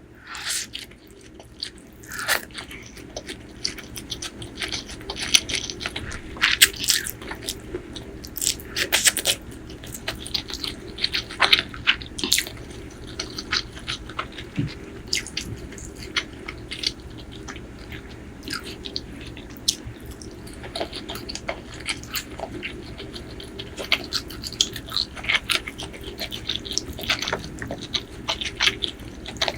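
Close-miked eating: a person biting into crunchy food and chewing, with many sharp, irregular crackles.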